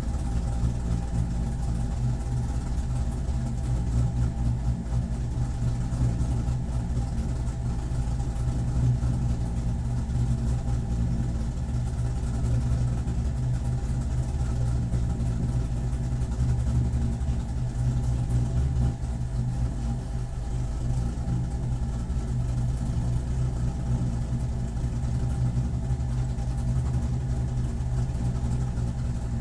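Corvette C7 racecar's V8 engine idling steadily.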